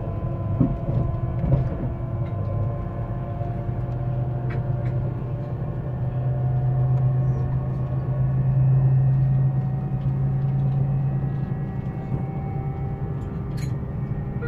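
Siemens Velaro E320 (Eurostar Class 374) IGBT traction inverters and motors under 25 kV AC 50 Hz, accelerating: several steady whining tones over the low rumble of the running train. The low hum swells from about six seconds in and eases after about eleven, with a couple of knocks in the first two seconds.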